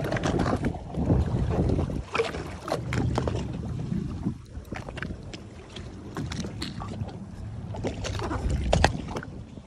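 Choppy sea water slapping and splashing against the side of a small fishing boat, with wind buffeting the microphone and scattered sharp knocks.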